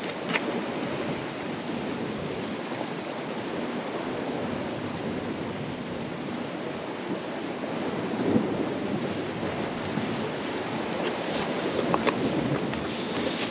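Sea surf washing against a rocky shore, with wind buffeting the microphone; the wash swells a little about eight seconds in.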